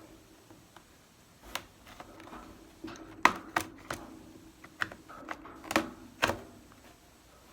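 Plastic retaining clips of a Dell Chromebook 3100's bottom cover snapping loose as it is pried off: a string of about seven sharp clicks and snaps, spread over a few seconds. These snaps are normal as the clips release, not a sign of breakage.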